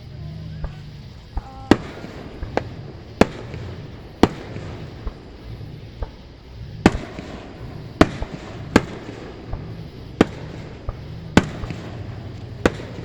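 Fireworks exploding overhead: about a dozen sharp bangs at irregular intervals, roughly one every second.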